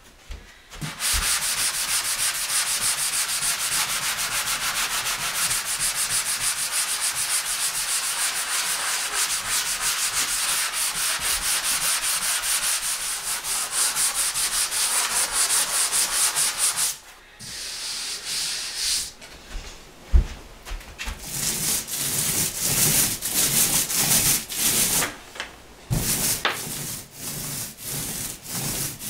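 Sanding dried drywall joint-compound patches: fast, steady back-and-forth scraping for about sixteen seconds. After a short pause and a single knock, it continues in irregular strokes.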